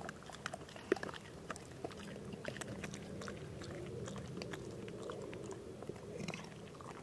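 Yellow Labrador retriever chewing a treat: a run of small, irregular crunching clicks.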